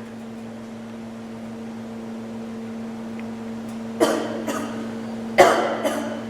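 A girl coughing from vaping: two pairs of short, sharp coughs about four and five and a half seconds in, the second pair louder, over a low steady hum.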